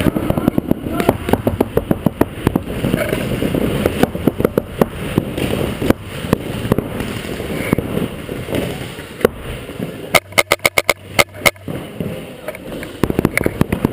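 Paintball markers firing Reball rounds: scattered sharp shots throughout, and a quick string of about nine shots in a second and a half about two-thirds of the way through.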